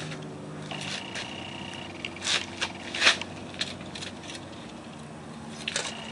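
Clicks and scrapes of a steel tape measure being pulled out and set against a mini bike tire, with two sharp knocks about two and three seconds in, over a steady low hum.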